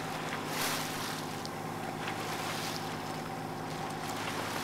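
A sailboat under way at sea: a steady low engine hum, with water washing along the hull and wind on the microphone swelling and easing every second or two.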